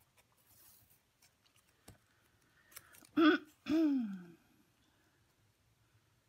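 A woman's two short wordless vocal sounds about three seconds in, the second a hum that falls in pitch, like a throat clear followed by a "hmm". Before them, faint rustling and a small click as glitter tape is pulled from its roll and pressed down.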